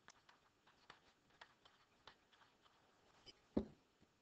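Faint scratching and ticking of a pen writing on paper, followed by a single soft thump about three and a half seconds in.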